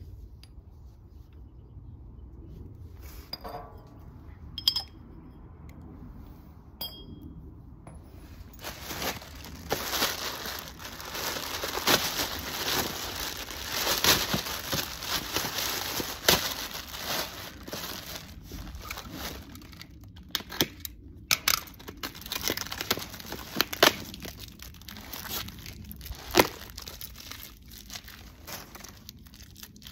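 A few ringing metal clinks as stainless pipe fittings are handled, then, from about nine seconds in, plastic packaging crinkling and tearing without a break as a part is unwrapped, with sharp louder rustles now and then.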